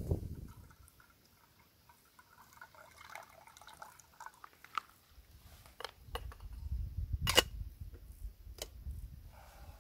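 Liquid squirted from a plastic squeeze bottle, trickling and dripping. After it come a few sharp clicks and knocks, one much louder than the rest, over a low rumble.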